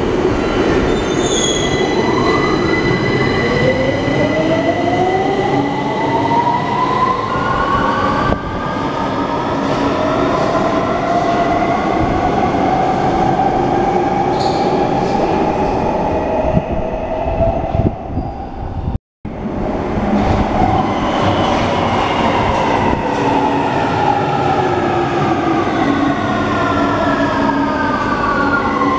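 London Underground 2009 Stock tube trains running through a station: the electric traction whine of one train climbs in pitch as it pulls away, then after cuts, trains come in with the whine sinking in pitch as they slow down.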